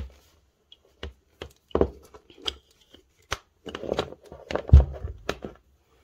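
Handling sounds of a small travel electric kettle as its control buttons are pressed to set the temperature: scattered light clicks and knocks, a short high tone around two and a half seconds in, and a heavier thump near the end.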